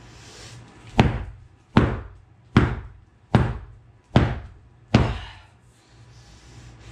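A foam bat whacking a futon six times in a steady rhythm, about one blow every 0.8 seconds, each a sharp thwack with a short decaying tail.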